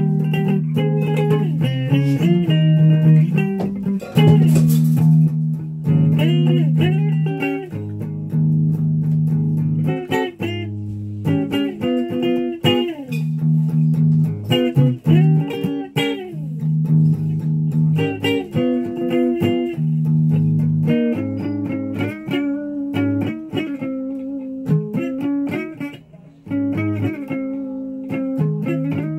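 Electric guitar played solo, picking single-note lines and riffs with a few sliding notes and short breaks between phrases.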